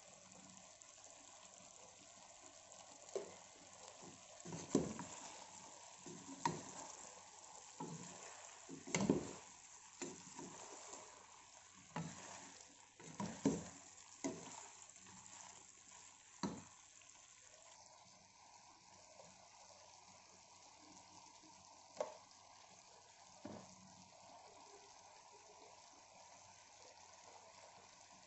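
A wooden spoon stirring a pot of potato, tomato and minced-meat stew, knocking and scraping against the pot in a run of strokes over the first half and twice more later, over a steady sizzle of frying.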